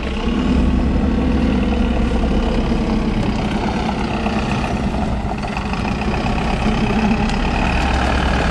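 Mercedes-Benz Vario truck's diesel engine idling steadily, a continuous low hum.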